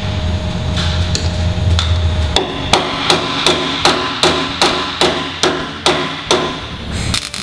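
Hammer striking the steel upper link pocket bracket on the car's trunk floor, a regular run of about a dozen sharp metallic hits, roughly three a second, starting about two and a half seconds in.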